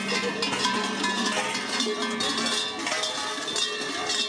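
Many large cowbells worn by Perchten clanging together continuously, a dense jangling clatter of overlapping strikes as the costumed figures move with them.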